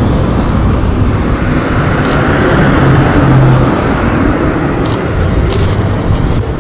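Road traffic, a car passing close by and swelling loudest about three seconds in. Short high double beeps sound twice and a few sharp clicks come over it.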